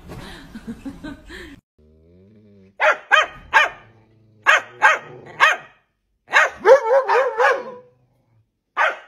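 A small dog barking sharply in quick runs of three or four barks. About six seconds in comes a longer run with a wavering, drawn-out cry in it. The barking follows a second and a half of low scuffling noise.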